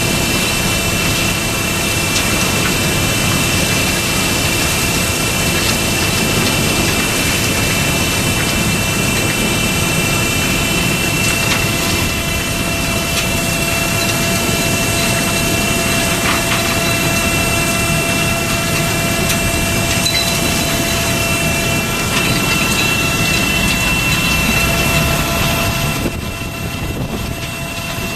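Superior 48-inch Razertail truck unloader running steadily as asphalt millings are unloaded from a bottom-dump trailer. A constant machine rumble carries a steady high whine, and the noise drops a little near the end.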